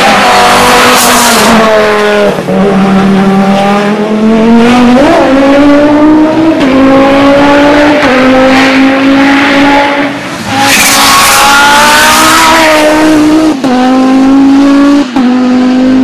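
Audi Quattro hillclimb race car at full throttle. The engine note climbs and drops again and again as the driver changes gear in quick succession.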